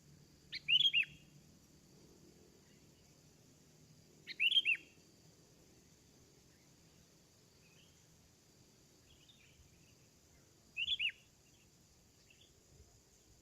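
Sooty-headed bulbul (kutilang) calling: three short phrases of a few quick notes each, about a second in, just after four seconds and near eleven seconds, with fainter chirps between.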